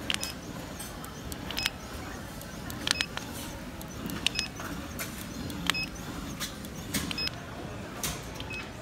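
Walnut-cake batter dispenser depositing batter into the griddle molds: a sharp click with a short high chirp each time the nozzle fires, about seven times at roughly one-and-a-half-second intervals, over a steady background hum.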